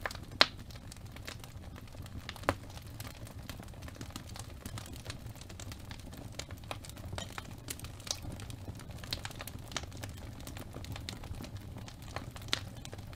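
Fireplace crackling: irregular snaps and pops over a low steady rumble, with a few sharper, louder pops, the loudest about half a second in and another near two and a half seconds.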